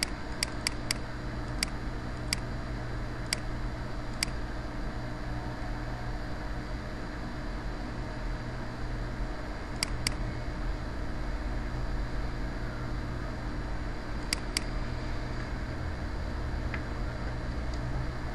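Computer mouse clicking about a dozen times, several in quick double-click pairs, over a steady hiss and hum of computer fan and microphone noise.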